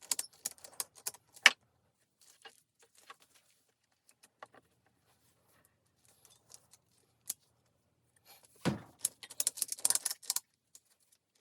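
Metal ratchet strap hardware clicking and rattling as the strap is handled around a tire: a burst of clicks at the start, a few faint ticks, then a dense rattling cluster about nine seconds in.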